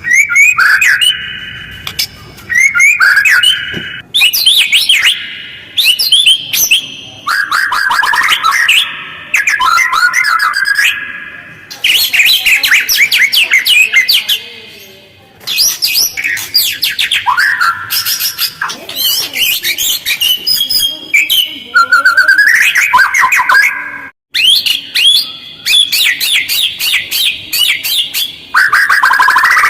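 White-rumped shama (murai batu) singing in harsh, fast phrases of rapid chattering notes, with short, tight pauses between phrases.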